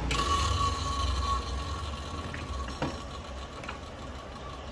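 A click, then an inverter stick welder's steady low hum with a thin high whine, slowly fading, and a few light taps near the middle.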